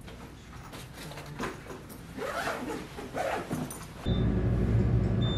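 Rustling and clicking of a bag being packed and gear gathered up. About four seconds in, this gives way abruptly to a loud, steady mechanical hum with a faint high whine, from a running escalator.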